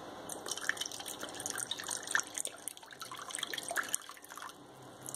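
Red wine vinegar poured from a small bottle into olive oil in a glass bowl, an irregular trickling and splashing of liquid that starts about a third of a second in.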